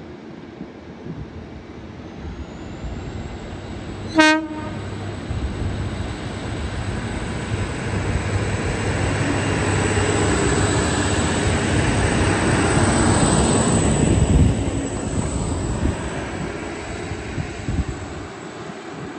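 A two-car Endeavour-class diesel railcar set passing through the station. It gives one short horn blast about four seconds in. Its diesel engines and its wheels on the rails then build to a peak as it goes by and fade as it draws away.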